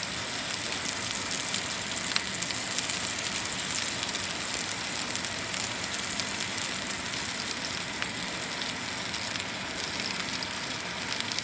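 T-bone steak sizzling in a frying pan: a steady hiss with a couple of faint pops.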